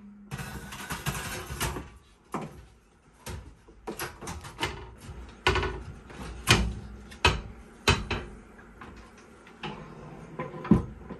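The range's metal top piece being set in place and handled: a scrape of sheet metal in the first couple of seconds, then a run of irregular metal knocks and clatters.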